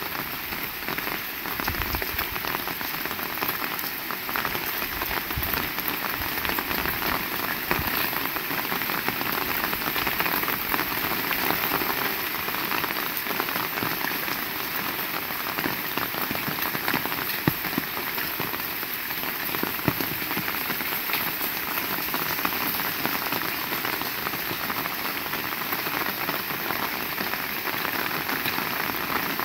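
Heavy rain falling steadily, with many individual drops striking close by.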